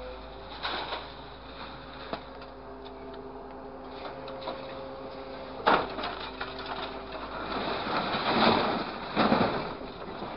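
A scrap handler's hydraulic orange-peel grapple working, with a steady whine that steps in pitch, while scrap metal clatters as it is dropped into a steel container. There is a sharp clang about halfway through and a longer rattle of falling scrap near the end.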